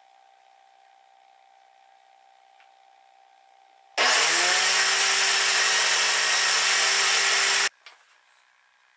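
Quiet for about four seconds, then a table saw motor starts up, its pitch rising briefly, and runs loud and steady for about four seconds before cutting off suddenly.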